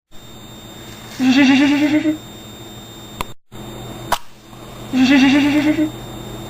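A wavering, bleat-like call of about a second, heard twice with the same shape each time, over a steady background hum. Short clicks and brief dropouts fall between the two calls.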